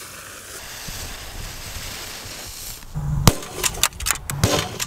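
A-Bomb firecracker's fuse hissing for about three seconds, then one loud bang as it goes off inside a steel .50 cal ammo can and blows the lid open, followed by several shorter sharp cracks and knocks.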